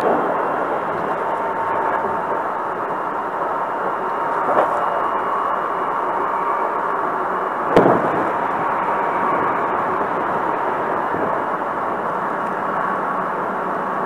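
Hankyu Kobe Line commuter train heard from inside the car while running: a steady rumble and rush of noise with a faint steady whine. Two sharp knocks come through, one about four and a half seconds in and a louder one near eight seconds.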